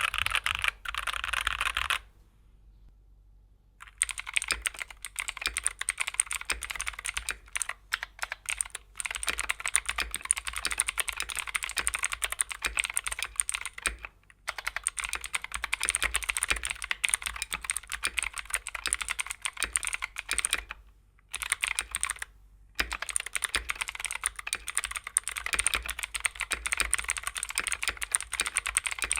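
Typing on a Keychron K6 Pro mechanical keyboard: a fast, continuous clatter of keystrokes. The first two seconds are on Keychron K Pro Brown switches. After a two-second pause, typing resumes on clicky Keychron K Pro Blue switches, with a few short breaks.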